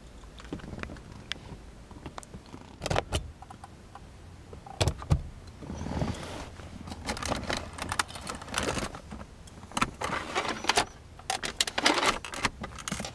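Handling noise in a car's rear cabin: a few scattered clicks and knocks, then from about six seconds in a busy run of rustling, tapping and clicking as a hand works the fold-down rear centre armrest and the seat trim.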